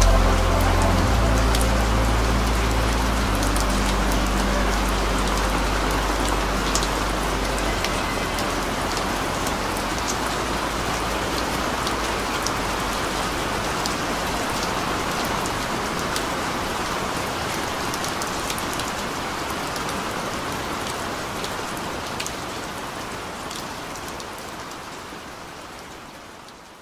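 Steady rain, an even hiss with scattered sharp drop ticks. A low held bass note from the song's ending lingers under it and dies away over the first several seconds. The rain fades out at the end.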